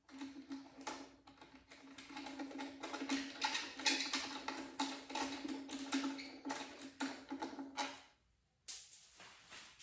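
Quick, irregular clicking of a socket wrench ratcheting as the handlebar clamp bolts are backed out, over a steady low hum. Both stop about eight seconds in.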